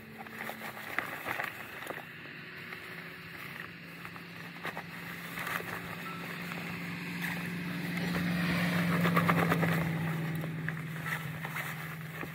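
A road vehicle passing by, its engine and tyre hum swelling to a peak about nine seconds in and then fading. Over it, the rustle of camo rain gear being pulled on.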